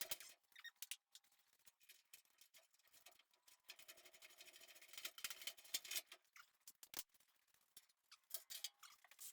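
Near silence, broken by faint scattered clicks and ticks and a stretch of light scraping near the middle.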